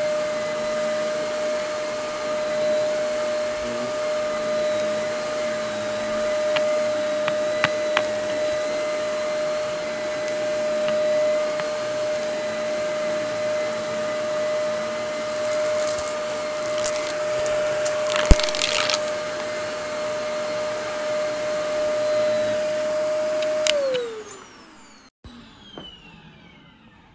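Red Shark upright vacuum cleaner running steadily over carpet, with a steady whine, a few sharp clicks and a brief patch of crackling about two-thirds through. Near the end it is switched off and the motor whine falls in pitch as it spins down.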